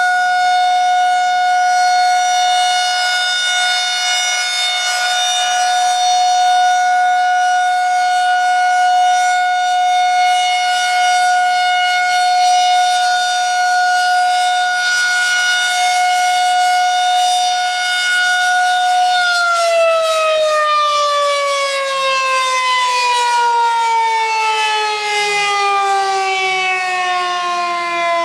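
Federal Signal 2001 SRNB single-tone electromechanical warning siren sounding its steady alert tone. About two-thirds of the way in the tone begins falling steadily in pitch as the siren winds down at the end of the alert signal.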